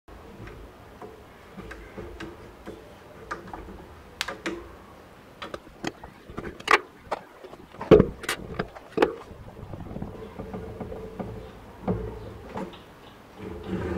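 Irregular clicks, taps and light knocks of steel rods, a lead screw and 3D-printed plastic parts being handled and fitted together by hand, with a few sharper knocks a little past the middle.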